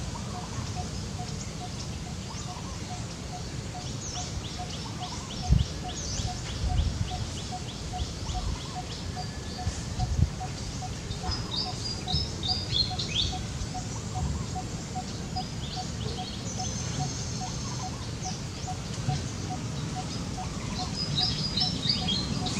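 Wild birds chirping and trilling in high, quick runs over a steady low note repeated about two or three times a second, with a few low thumps, the loudest about five and a half seconds in.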